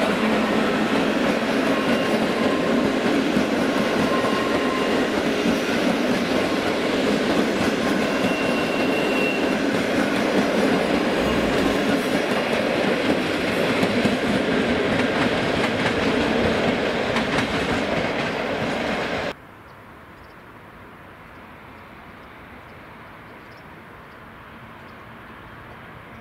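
PKP Intercity passenger train hauled by an EP07 electric locomotive rolling past, its coaches' wheels clattering over the rail joints in a steady loud rush. About nineteen seconds in the sound cuts off abruptly to a much quieter low rumble of an ET22 electric locomotive with car-carrier wagons approaching in the distance.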